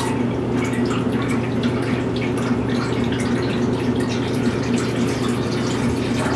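Water poured from a glass measuring cup into a stainless steel stockpot, a continuous splashing trickle, over a steady low hum.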